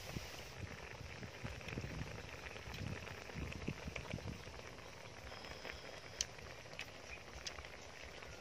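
Eating sounds: chewing through the first half, then a few sharp clicks of chopsticks against a small glass bowl.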